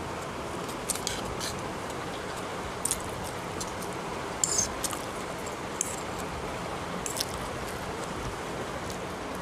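Metal fork clicking and scraping against a plate while picking up noodles: a handful of short, sharp clicks spread through, the loudest about halfway through, over a steady background hiss.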